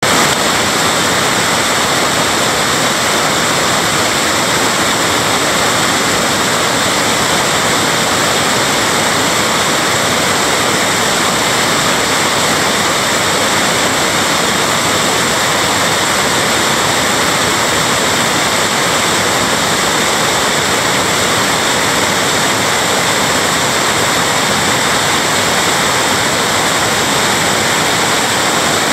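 Creek water tumbling over small rock-ledge cascades, a steady loud rushing and splashing that does not let up.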